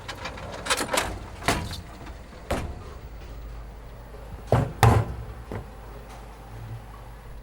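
A series of sharp knocks and thuds, about seven in all and uneven in spacing, the two loudest close together near five seconds in, over a steady low hum.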